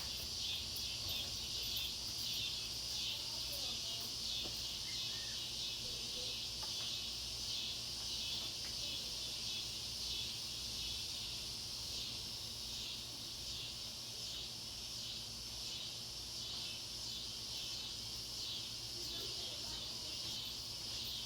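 A steady chorus of insects, a high shrill drone that pulses rapidly and evenly throughout.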